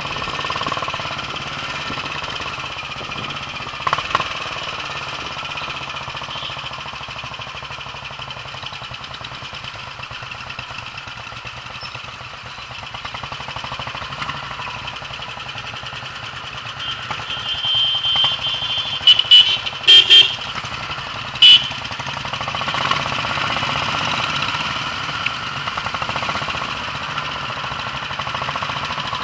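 Royal Enfield single-cylinder motorcycle engine running steadily on the move, its rapid even pulse under road noise. A vehicle horn sounds about two-thirds of the way through: one longer blast, then a few short honks.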